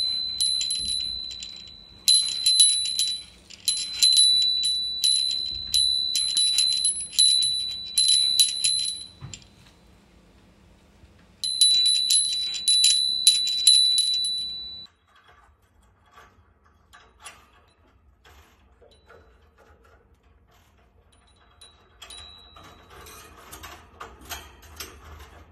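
Stainless steel bell rung over and over, each strike giving a bright, high ring that dies away, one to two strikes a second. A pause, then another run of rings that stops abruptly about fifteen seconds in. After that only soft clicks and rustling, with one brief ring near the end.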